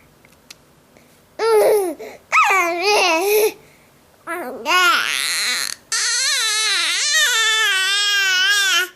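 A baby vocalising: short, high babbling squeals with swooping pitch, then a long drawn-out wavering wail of about three seconds near the end.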